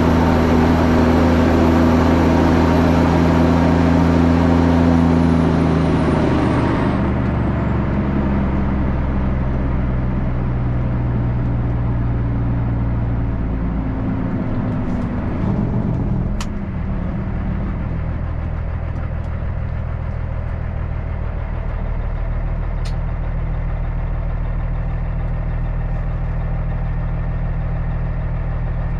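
Heavy diesel truck engine running steadily under way. About halfway through its note drops to a lower, even drone.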